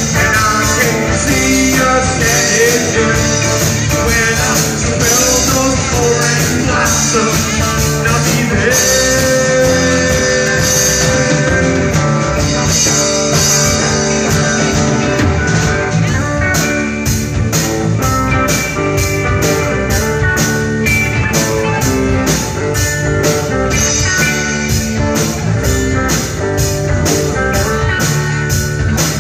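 Live rock band playing: acoustic guitar, electric guitars, electric bass and drum kit. From about halfway in, a steady beat of sharp drum strokes, a little over two a second, comes forward in the mix.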